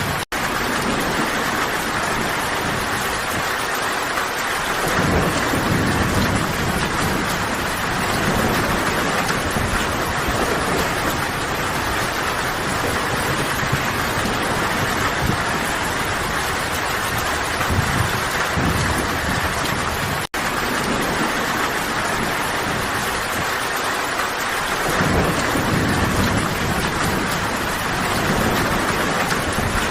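Steady heavy rain, an even dense hiss, with low rumbles swelling up twice, about 5 seconds in and again near the end. The sound cuts out for an instant twice, just after the start and about 20 seconds in.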